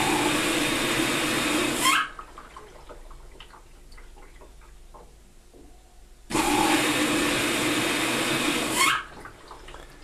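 Washing machine filling with water through its inlet solenoid valve: water rushes into the machine in two spells, the first cutting off about two seconds in and the second running from about six to nine seconds in. Each spell ends with a brief rising whistle as the flow stops, and it is much quieter in between.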